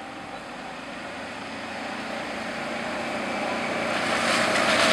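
Golf cart approaching on wet pavement, the hiss of its tyres on the water growing steadily louder as it nears.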